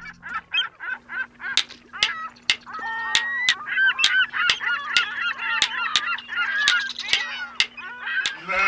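Goose-like honking calls, repeated rapidly over a steady clicking beat of about two to three ticks a second, with a low steady tone underneath.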